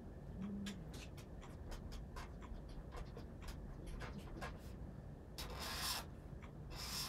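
Faint pen-on-paper writing: short irregular scratches and ticks, about three or four a second. Two louder hissing bursts come near the end.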